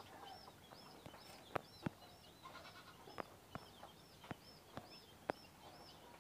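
Faint, quiet background with a high chirp repeating about twice a second, and about eight light sharp clicks spread through it, taps of typing on a phone's on-screen keyboard.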